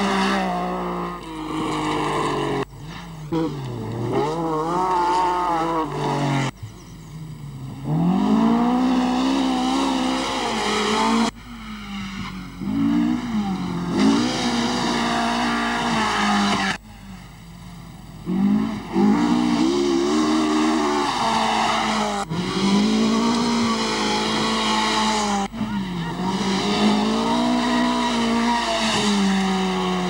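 Rally car engines revving hard on gravel stages, the pitch climbing and dropping again and again through the gears. Several separate passes break off abruptly one after another, and near the end one car's revs fall away.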